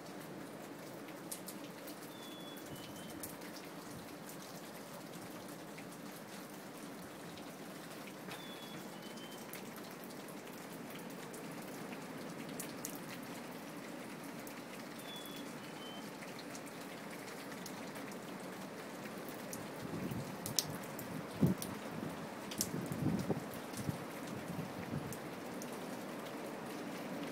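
Steady rain with scattered sharp drops, and a black-capped chickadee whistling its two-note, falling 'fee-bee' song three times, several seconds apart. Louder, irregular low gusts of wind come through near the end.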